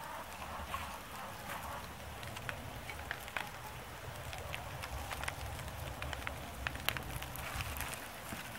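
Small fire of dry wood shavings crackling, with irregular sharp pops over a soft hiss.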